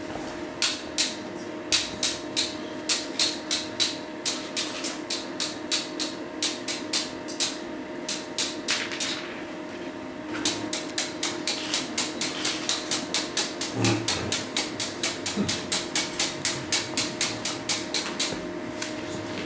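A rapid series of sharp taps or knocks, about two to three a second, then after a short pause near the middle about four a second, over a steady electrical hum.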